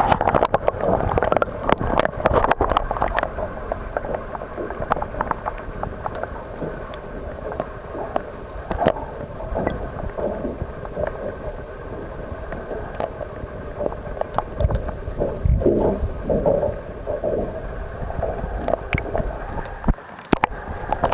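Water heard from a microphone held underwater: muffled sloshing and gurgling, with a cluster of splashes and knocks as the camera goes in at the start and more near the end as it comes back to the surface.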